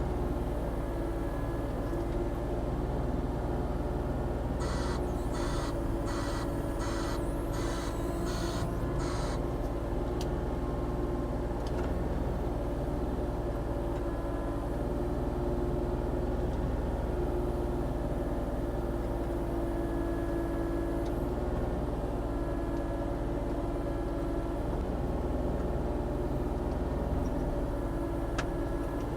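Volvo ECR40D compact excavator's engine running steadily while digging. About five seconds in comes a run of roughly seven short, evenly spaced hissing pulses lasting a few seconds.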